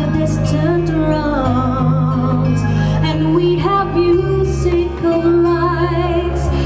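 A woman singing a Broadway medley live through a concert PA, holding long notes with vibrato over sustained amplified accompaniment whose low notes shift every second or so.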